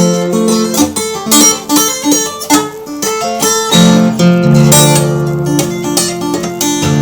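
Guitar being played: a run of quick picked notes, then held notes left ringing from about four seconds in.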